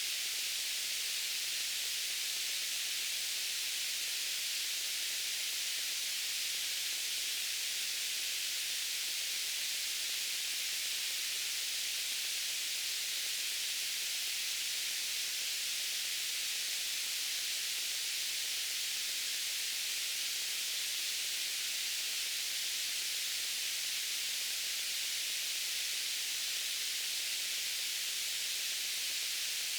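Steady white noise: an even, unchanging hiss, bright and high, with little low end.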